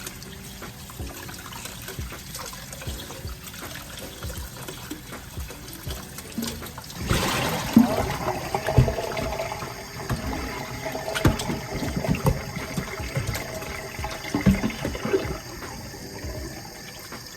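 Kitchen tap running water into a sink while raw chicken is cleaned, with small knocks and splashes from handling. The flow grows much louder about seven seconds in.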